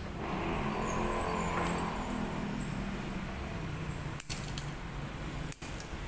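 A steady low motor hum, swelling slightly over the first couple of seconds, with a few faint clicks near the end as wires are handled at a plastic wall switch.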